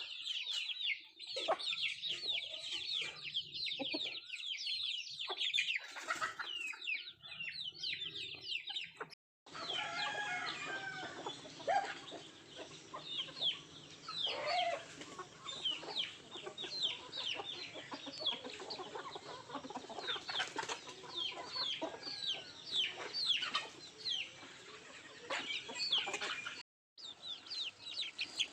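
Country chickens clucking as they feed, over a dense stream of many high, short, falling chirps. Two brief dead-silent gaps break the sound, about nine seconds in and near the end.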